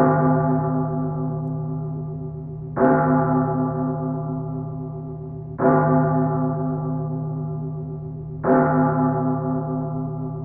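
A large metal bell tolling four times, struck about every three seconds. Each deep, ringing stroke fades slowly with a slight waver before the next.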